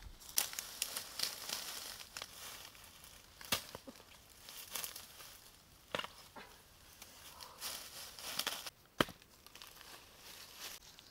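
Dry fallen bamboo leaves and papery shoot sheaths rustling and crackling as they are trampled and handled, broken by a few sharp cracks, the loudest about nine seconds in.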